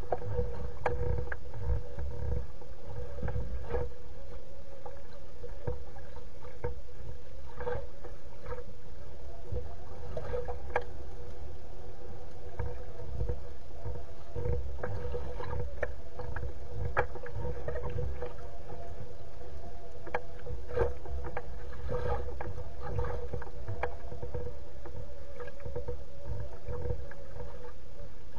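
Lake water lapping and slapping against the edge of a loon's floating nest, with a constant low wind rumble on the nest-cam microphone. Short irregular slaps come every second or so over a steady hum.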